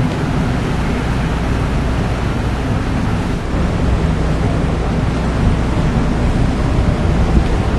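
Steady low rumble of a ferry's engines under way, with an even rush of water and wind noise over it.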